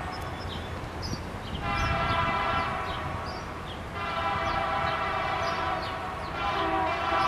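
A diesel locomotive's multi-chime air horn sounding from a distance in a series of long blasts, each a chord of several tones. One blast starts about a second and a half in, another about four seconds in, and a third begins near the end, over a steady low rumble.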